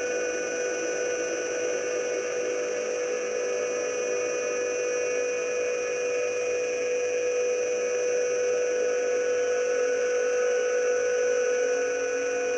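Sustained ambient drone in a post-rock track: several steady held tones sounding together, swelling slightly before easing near the end.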